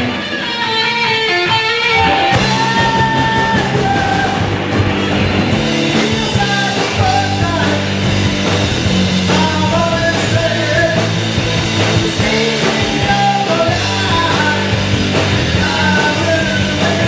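Rock band playing: electric guitar, bass and drums, with singing over them at times.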